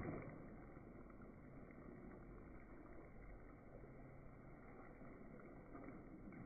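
Sauced chicken and vegetables tossed in a skillet: a soft slap as the food lands right at the start, then faint shuffling of the pan over a steady low hiss.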